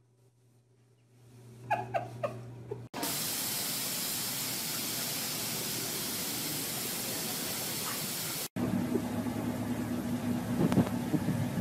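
A few short high squeaks, then a steady hiss of spraying water for about five seconds, cutting off suddenly. A car's engine then hums steadily at idle, with a couple of knocks near the end.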